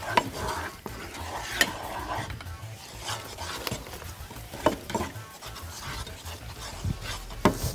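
Wooden spoon stirring and scraping a flour-and-milk béchamel in a nonstick frying pan, with sharp knocks at irregular moments as the spoon strikes the pan, the loudest near the end.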